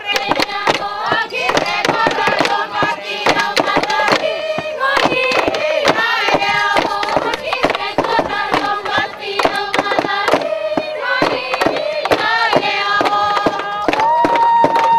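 A group of voices singing a traditional song in unison over a steady beat of sharp percussive strikes.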